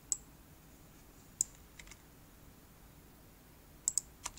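Scattered single clicks from a computer mouse and keyboard, about six in all, with a quick pair near the end, over faint room hiss.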